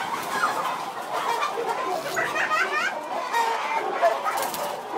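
A flock of broiler chickens clucking and calling inside a poultry house, many birds at once in a continuous dense chatter.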